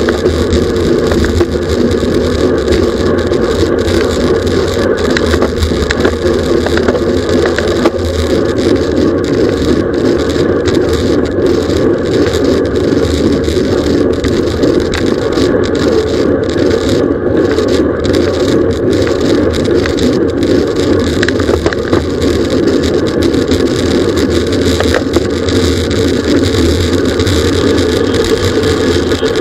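Steady loud rush of wind on the microphone, mixed with tyre and drivetrain noise from a road bicycle racing at speed, with scattered small clicks and rattles.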